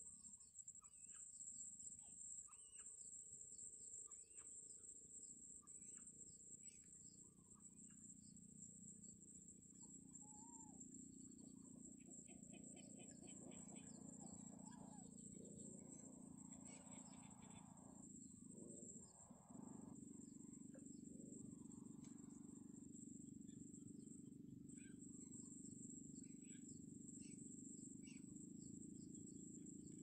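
Faint outdoor ambience near silence: a steady high-pitched insect drone, with scattered faint chirps and ticks and a low steady hum underneath.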